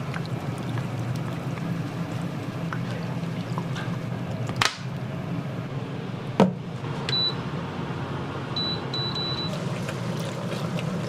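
Commercial kitchen sounds: a steady noisy background, two sharp clacks a little under two seconds apart, and short high electronic beeps from an appliance, one and then three in a quick row.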